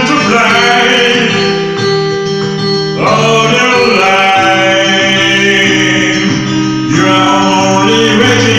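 Karaoke performance of a song: acoustic guitar and held low notes with a singing voice over them, with fresh phrases coming in at about three and seven seconds.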